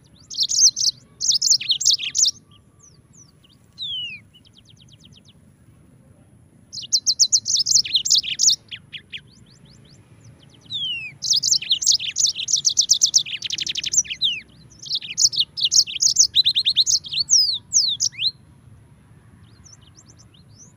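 Yellow-fronted canary (Mozambique canary) singing: bursts of rapid high trills and quick sweeping notes, in several phrases with pauses between them, the longest lasting about seven seconds in the second half.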